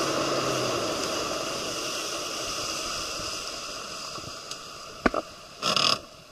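Light aircraft's propeller engine passing by, a steady rushing drone that fades away as the plane recedes, its low hum dropping out about a second in. Near the end there is a sharp knock and a short rustling burst from handling of the camera.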